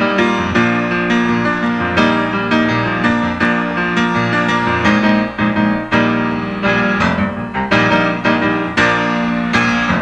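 Instrumental introduction of a country-rock song: piano chords struck in a steady rhythm.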